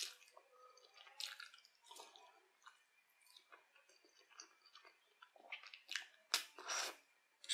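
Close-miked eating sounds of creamy fettuccine carbonara: wet chewing and slurping as the noodles are drawn into the mouth, in short scattered bursts, with a cluster of louder slurps near the end.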